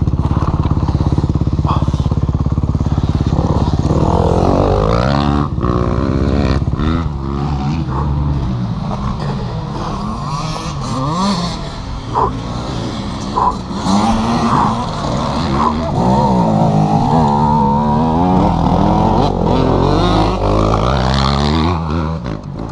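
Kawasaki KX250F four-stroke single-cylinder motocross engine, running steady for the first few seconds, then revving up and down repeatedly as the bike is ridden over the track, with a few knocks along the way.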